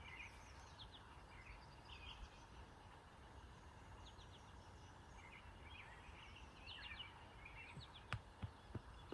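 Small birds chirping faintly and repeatedly over a low, steady background hush. Several sharp clicks or knocks come near the end.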